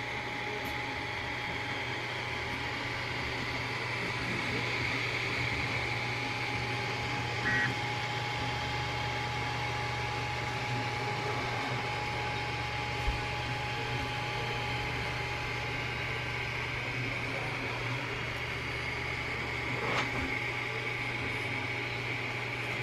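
Artillery Genius FDM 3D printer running mid-print: a steady whir of its fans and motors with a thin constant whine and a low hum, and a few faint clicks.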